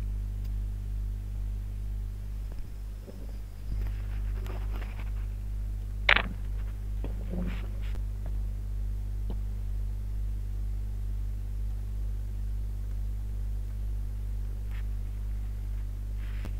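Steady low electrical mains hum, with a few faint brief sounds and a sharp click about six seconds in.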